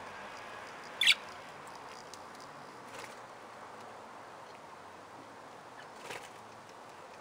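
Budgerigars in an aviary giving a few short, sharp chirps: one loud call about a second in and two fainter ones later, over a steady background hiss.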